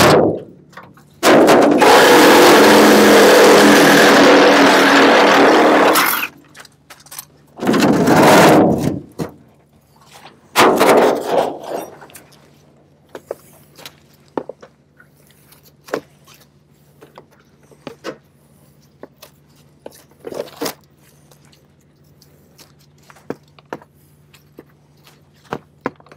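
Car sheet metal being worked on during hood removal from a car on its side: several seconds of loud scraping and crunching metal, two shorter bursts, then scattered knocks and clanks over a steady low hum.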